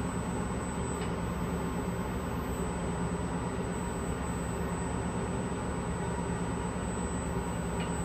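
Steady hum and air rush of shop ventilation and equipment fans, with a thin steady high whine over it. Two faint ticks sound, one about a second in and one near the end.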